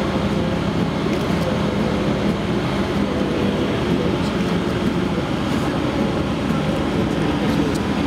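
Loud, steady mechanical rumble with a constant low hum, unchanging throughout.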